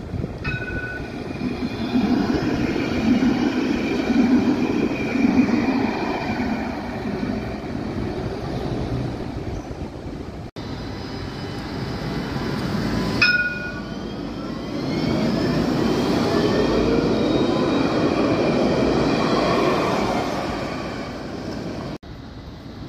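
Alstom Citadis trams running on street track: a low rumble of wheels on the rails and the running gear, with a rising electric whine in the second half as one pulls away. Two bright ringing dings, about half a second and thirteen seconds in, each fading over a couple of seconds.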